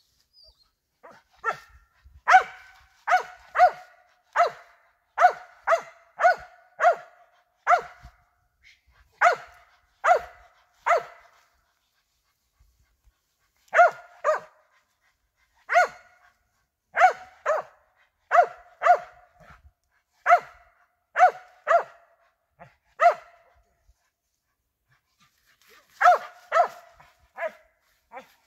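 A squirrel-hunting dog barking steadily, with short, sharp barks at one or two a second, about thirty in all, broken by two short pauses. A steady run of barks like this is how a squirrel dog marks a tree it has a squirrel in.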